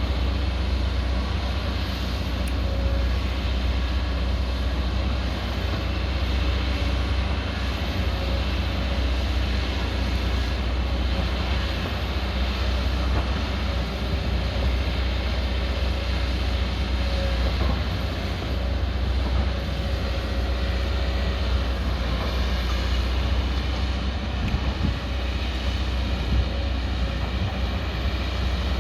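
Diesel engine of a 22-ton-class hydraulic excavator running steadily, a deep, even drone with no breaks.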